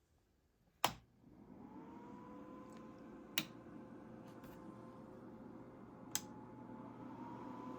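An O gauge model train layout powering up: a sharp click about a second in, then a steady electrical hum with a whine that rises and levels off, as the locomotive sound systems start up. Two more sharp clicks follow.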